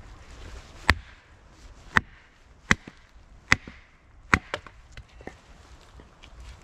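Hatchet splitting dry ash into kindling on a log chopping block: five sharp chops about a second apart, then a few lighter knocks.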